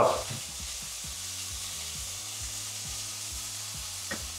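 Pork schnitzel strips frying in hot oil in a pan, a steady sizzle, with one faint short tick about four seconds in.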